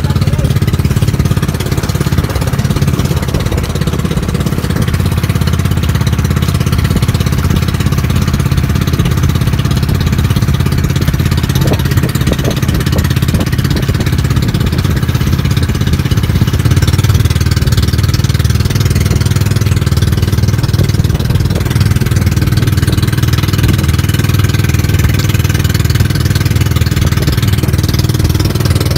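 Engine of a small outrigger fishing boat running steadily at cruising speed, a constant low hum.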